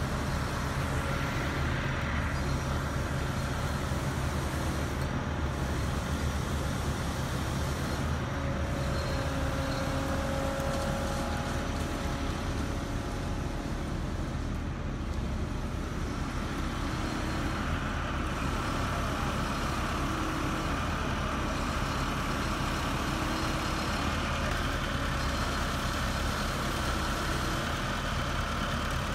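Heavy truck engine running steadily at a constant level.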